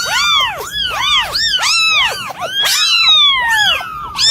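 Cat giving an unusual, high-pitched run of short rising-and-falling cries, about two or three a second, with one longer falling cry about three seconds in.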